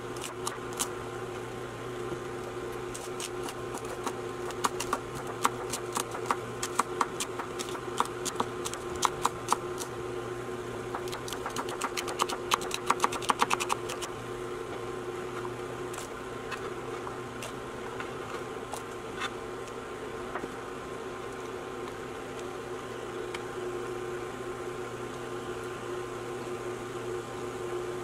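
Knife chopping celery on a hard cutting surface: quick, sharp taps of the blade, with a fast run of strokes around the middle, after which the chopping stops and only a few scattered taps remain. A steady hum runs underneath.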